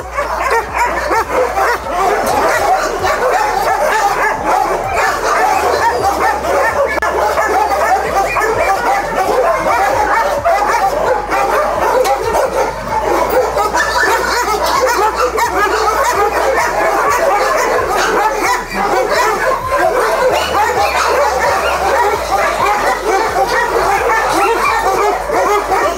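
A chorus of many kennel dogs barking and yelping at once, a loud, unbroken din with no let-up.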